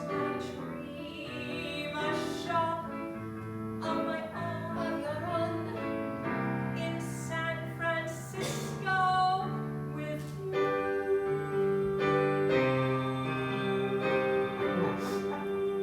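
A woman singing a musical-theatre song over instrumental accompaniment, ending on a long held note in the last few seconds.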